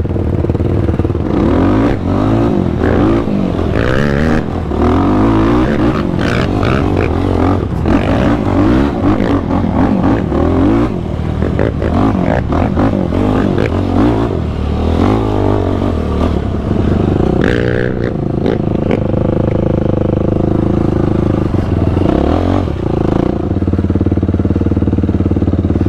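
ATV engine revving up and down repeatedly, with some clattering.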